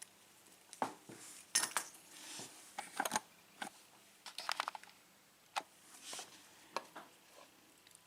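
Scattered light metallic clicks and clinks of small lock pins from a six-pin Euro cylinder being handled and set down, at uneven intervals.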